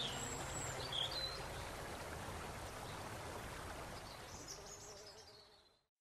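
Faint outdoor ambience with a few short, high bird chirps, fading out to silence near the end.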